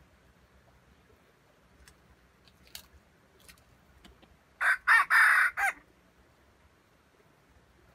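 Red junglefowl rooster crowing once, a short broken crow of about a second, about halfway through.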